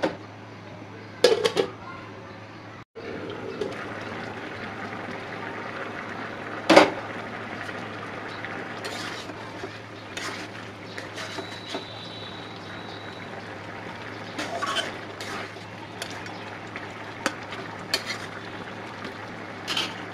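Metal spatula clanking and scraping against a metal kadai as a thick vegetable khichuri is stirred: a number of separate knocks, the loudest about a third of the way in, over a steady low hiss of the pot cooking on the stove.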